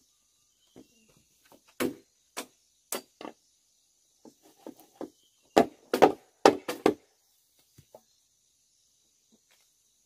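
Machete hacking at green bamboo poles: about nine sharp chops, a few spaced out at first, then a quick, louder run of five about halfway through.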